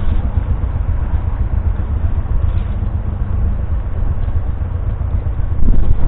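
Vintage tractor engine running at a steady speed, with a fast, even beat.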